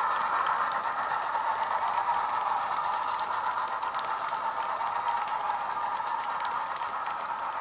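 Hornby A3 'Flying Scotsman' OO-gauge model locomotive running, its onboard sound decoder playing steam-engine chuffing and hiss through a small speaker over the running noise of the model on the track. The sound is steady and eases off slightly.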